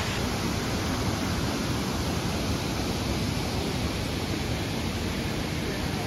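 Steady rush of flowing water from the cascades and pools of Kuang Si Falls.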